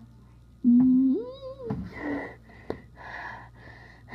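A person's voice makes a low 'hmm' that glides upward, then a string of short breathy wheezes, about three a second.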